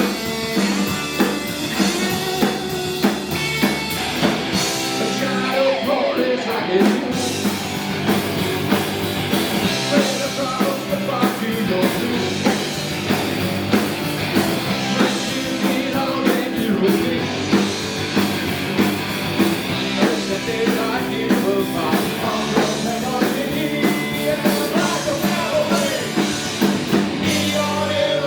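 Live rock-and-roll band playing at full volume: a drum kit keeps a steady beat under guitars, with lead lines bending in pitch.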